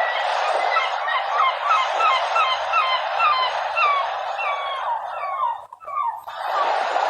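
Gulls calling in a rapid run of short, downward-bending calls, several a second, over the steady wash of sea waves. The wash breaks off for about half a second near the end.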